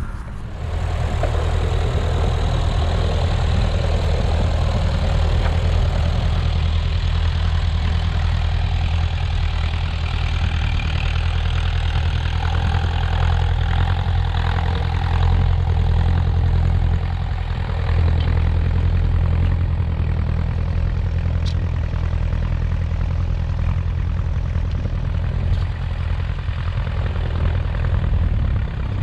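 Tractor's diesel engine running steadily under load while ploughing; the low drone picks up about a second in and holds even.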